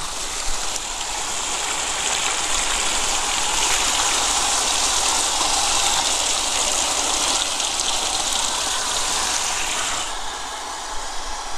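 Water gushing from a farm irrigation pipe outlet and splashing over a fish and hands held in the stream, a steady rushing splash. About ten seconds in it drops to a quieter, patchier trickle and splash.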